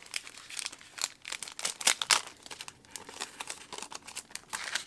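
Thin clear plastic packaging sleeve crinkling as it is handled and opened by hand: a dense run of irregular crackles, loudest about two seconds in.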